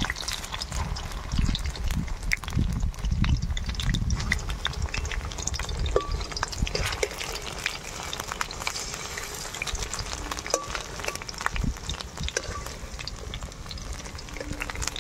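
Battered taro fritters frying in hot oil in a metal wok, with steady sizzling full of small pops, while a steel spatula scrapes and clicks against the wok as the pieces are moved. A low rumble runs under it for the first few seconds.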